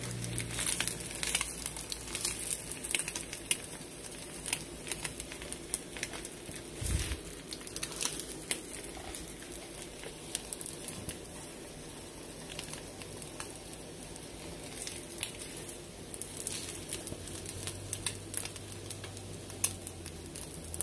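An over-medium egg frying in a greased nonstick pan, sizzling steadily with many scattered small pops and crackles. There is one dull knock about seven seconds in.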